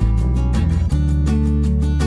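Background music: a guitar-led track with strummed chords, a steady beat and a strong bass line.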